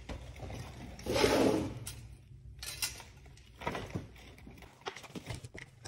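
Headlight parts being handled and set down on a concrete floor: a short clatter about a second in, then scattered light clicks and knocks.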